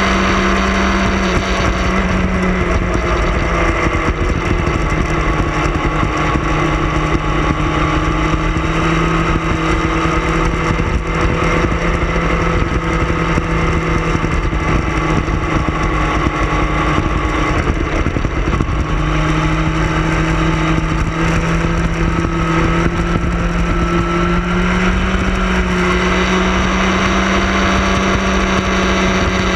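Sport motorcycle engine running at cruising speed through curves, over steady wind rush. The engine note drops about two seconds in, holds lower, then climbs back up in steps near the end as the throttle is opened again.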